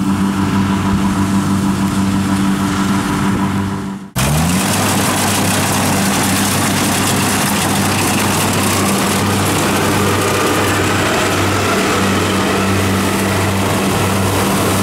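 Rice combine harvester running steadily while harvesting, a constant engine hum. About four seconds in it breaks off and comes back noisier, with the rush of the header cutting standing rice and the threshing mechanism.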